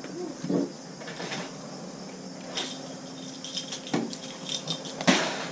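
Small hard objects being handled: scattered clicks, clinks and knocks, with a brief louder clatter near the end.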